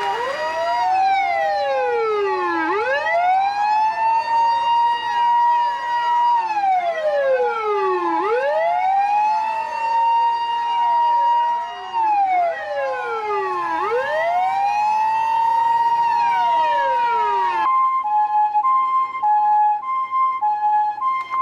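Electronic emergency-vehicle siren in wail mode, climbing slowly in pitch, holding, then falling, in overlapping sweeps that repeat about every five and a half seconds. Near the end it cuts abruptly to a two-tone hi-lo siren, switching back and forth between a higher and a lower note.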